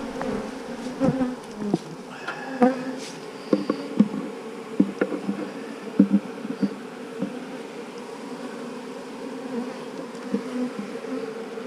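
Honeybees buzzing steadily in an open hive, with scattered knocks and clicks as a wooden frame is worked loose.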